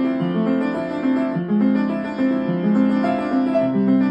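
Upright acoustic piano played four hands, two players at one keyboard, with a steady flow of sustained chords and melody notes changing about every half second.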